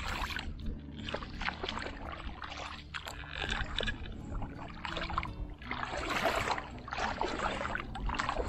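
Shallow water splashing and sloshing in repeated bursts, roughly one a second.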